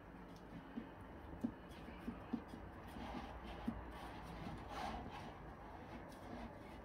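Silicone spatula pressing and smoothing a crumb cheesecake base in a metal springform tin: faint rubbing and scraping, with a few light knocks in the first four seconds.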